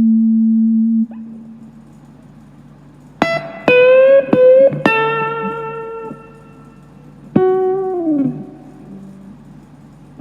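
Electric guitar played one note at a time. A held note stops about a second in; after a pause come a few picked notes with a string bend up, then a long ringing note, and a final note that falls in pitch as it dies away. It is being played to test its tone after a setup.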